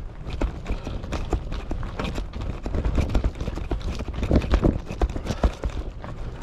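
Wind rumbling on a bicycle-mounted camera's microphone, with irregular clicks and knocks of the bike rattling over the road, loudest in a cluster a little past four seconds in.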